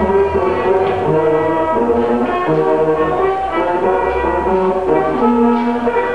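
Music: brass instruments playing a melody of held notes over a low bass.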